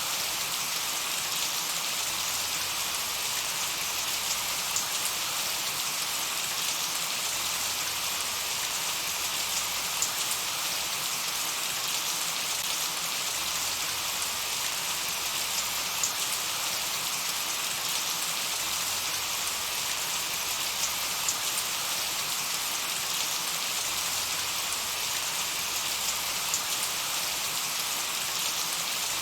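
Steady light rain falling, an even hiss with scattered drops ticking.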